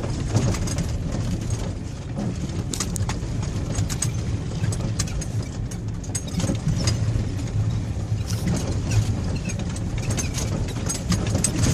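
Car in motion, heard from inside: a steady low rumble of engine and tyres, with scattered small clicks and rattles.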